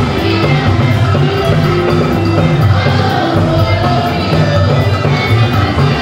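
Amplified church music: a children's choir singing over a live band, with a steady, repeating bass line underneath.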